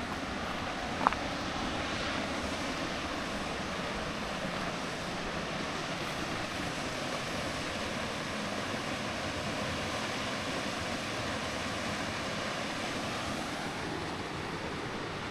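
Steady rushing of falling water, with a brief high chirp about a second in.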